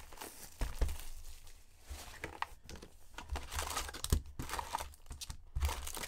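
Plastic wrapping on an Upper Deck hockey card box and its packs being torn open and crinkled by hand: irregular rustling with a few sharper rips.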